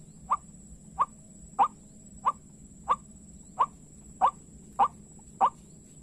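White-breasted waterhen (ruak-ruak) calling: short, sharp notes repeated evenly, about three every two seconds. A faint steady high whine runs underneath.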